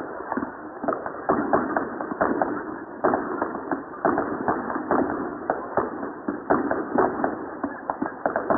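Fireworks going off in a dense, irregular crackle of sharp pops and bangs, several a second.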